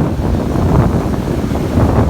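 Wind buffeting the microphone, loud and low, with ocean surf breaking beneath it.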